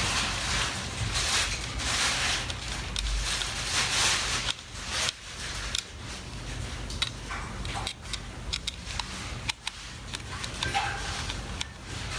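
Small hand-assembly sounds of an electric shaver's plastic casing and screws being put back together: bursts of rubbing and scraping, then scattered small clicks.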